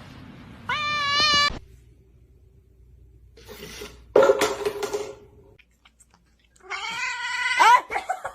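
Domestic cat meowing: three separate drawn-out meows, one about a second in, a louder one around four seconds, and a last one near the end that bends in pitch.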